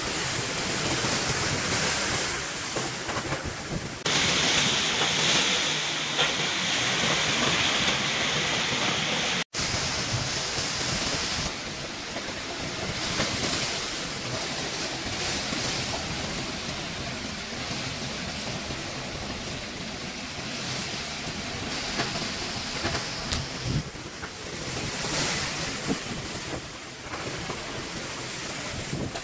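Strong storm wind gusting through banana plants and trees, with wind buffeting the microphone. The sound jumps louder and brighter about four seconds in, and it drops out for an instant at a splice about nine and a half seconds in.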